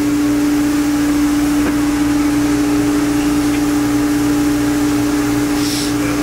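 A steady machine hum at one constant pitch, with a brief light rattle near the end.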